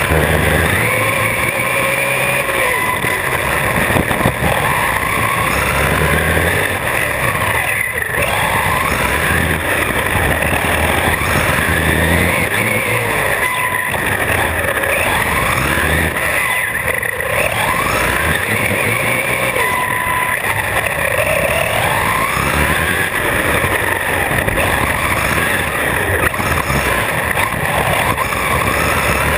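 Brushless electric motor and drivetrain of a Traxxas RC truck whining, rising and falling in pitch again and again as the throttle is squeezed and released. Steady tyre and road noise runs underneath.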